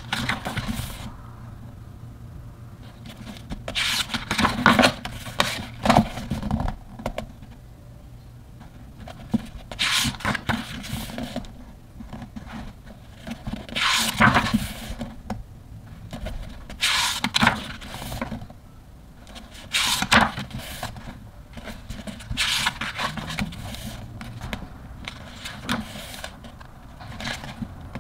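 Thick pages of a hardcover photobook turned by hand one after another, a short papery rustle each time, about every three seconds.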